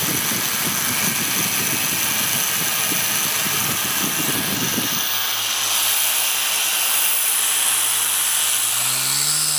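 Small toy quadcopter's four electric motors and propellers spinning at low throttle on a bench test, including a freshly replaced motor, all running. A steady airy whir with an uneven low rumble for about the first five seconds, then an even hum; near the end the motor pitch dips and rises.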